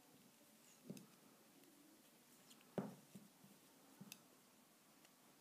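Knitting needles clicking and tapping together as stitches are worked: a few soft, separate clicks, about a second in, near the middle (the loudest) and about four seconds in, with near silence between.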